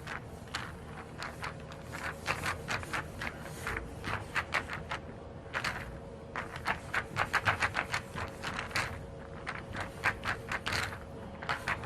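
Billiard balls clicking against one another: many short, sharp clacks at irregular intervals, with a quick run of them about seven seconds in, over a steady hum of room tone.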